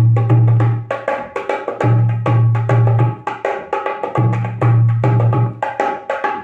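Sheesham wood nut-bolt dholak played in a quick rhythm. Many sharp, ringing strokes on the treble head run over deep, sustained strokes on the bass head, and the bass strokes come in groups about every two seconds.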